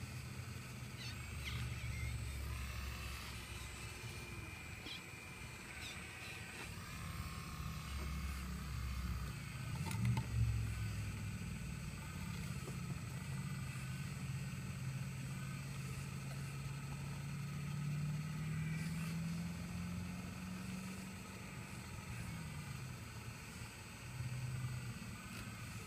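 Excavator engine running under varying load, its pitch shifting and slowly rising over several seconds in the second half, with a single loud clunk about ten seconds in.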